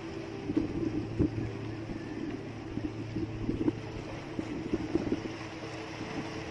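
A small boat engine running steadily with a low hum, with scattered knocks and splashes as the crew hauls a tuna alongside on a handline.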